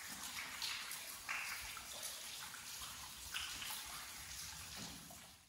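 Water trickling and splashing, an uneven running-water hiss that fades out at the end.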